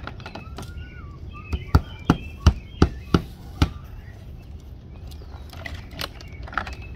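Hammer driving nails through the nailing hem of vinyl siding into a plywood wall: about seven quick, sharp strikes in a burst of two seconds, followed by a few lighter clicks as the siding is handled.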